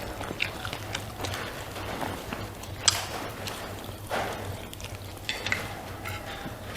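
Eating sounds: chewing and wet mouth noises with scattered short clicks, one sharp click about three seconds in.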